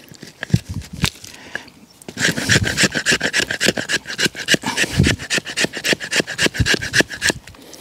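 A steel knife blade scraping down a hardwood stick to raise fine wood dust as tinder for a ferrocerium rod. A few separate scrapes come first, then about two seconds in a fast, steady run of short scraping strokes that stops shortly before the end.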